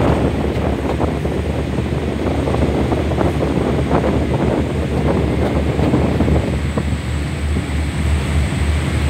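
Wind buffeting the microphone on the open deck of a ship under way, over the steady rush of its churning wake.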